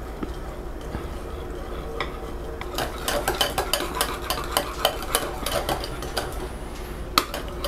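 Wire whisk beating egg and sour cream in a bowl. The wires scrape and click against the bowl, light at first, then in quick, dense strokes from about three seconds in.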